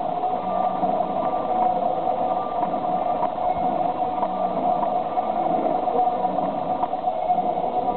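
Steady hum and hiss of a large indoor arena's room sound, unchanging and with no distinct event.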